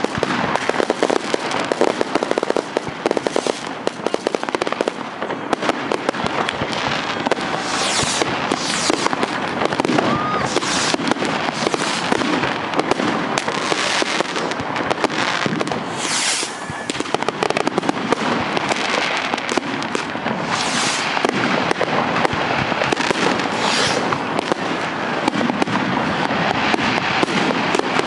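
Fireworks going off without a break: aerial shells and rockets bursting in a dense, overlapping run of bangs, pops and crackling, with a louder bang standing out every few seconds.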